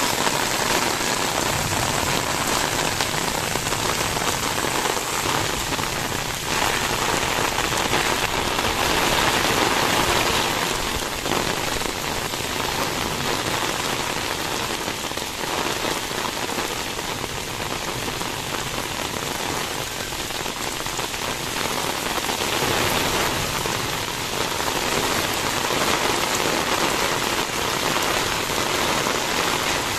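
Heavy rain falling steadily on wet paving and puddles, an even hiss of drops.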